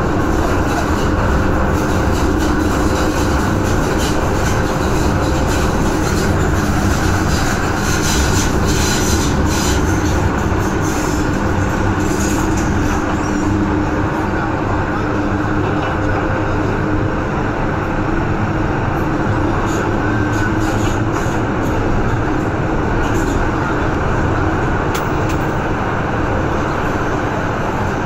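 MTR M-train electric multiple unit running at speed through a tunnel, heard from inside the car: a loud, steady rolling rumble of wheels on track with motor hum. High-pitched wheel-on-rail noise and clicks flare up about eight to twelve seconds in.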